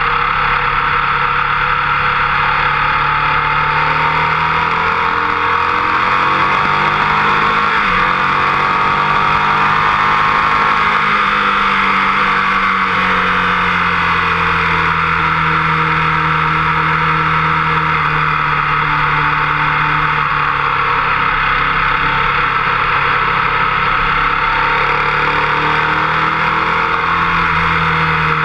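Motorcycle engine running hard around a racetrack, its pitch rising and falling with the throttle through the corners and down the straight, with wind rushing over the fork-mounted camera.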